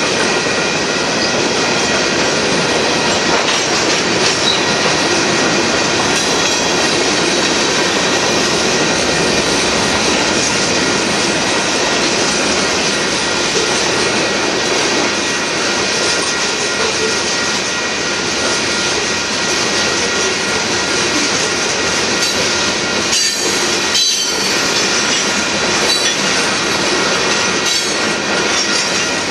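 Union Pacific freight train's covered hopper cars rolling past, a loud, steady noise of steel wheels on the rails with thin, steady, high wheel squeal.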